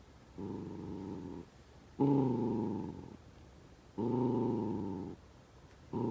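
Senior miniature dachshund growling in a run of low, pitched grumbles, each about a second long and coming roughly every two seconds, as it works at a Kong toy to get treats out.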